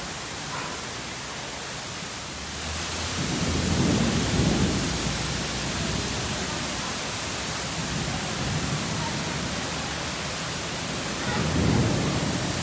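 Heavy rain pouring steadily, growing louder about three seconds in, with low rumbles of thunder around four seconds in and again near the end.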